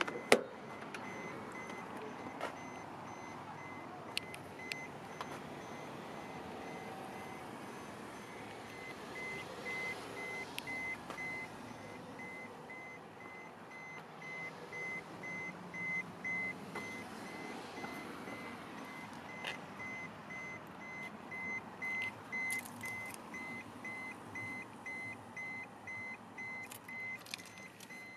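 The driver's door latch clicks open, then the Pajero's warning chime beeps as a rapid, even, high-pitched series with the door open and the key in the ignition.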